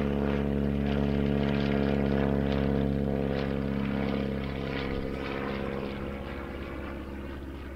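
VL Viima II biplane's radial engine and propeller droning steadily in flight, easing off somewhat over the last few seconds.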